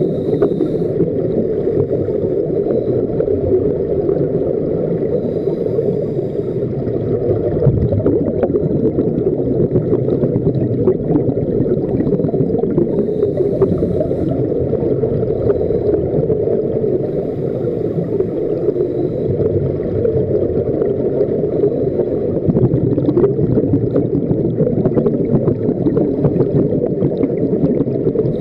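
Scuba divers breathing through regulators, heard underwater: a steady low bubbling rumble of exhaled air bubbles, with scattered faint clicks.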